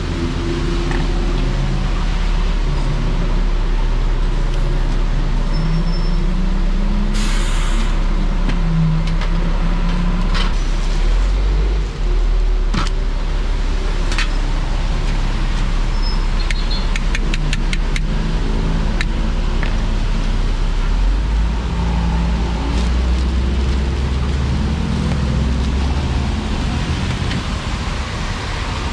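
Roadside traffic: engines of passing cars and heavier vehicles running with a steady low rumble and shifting pitch, a short hiss about seven seconds in, and a quick run of sharp clicks a little past the middle.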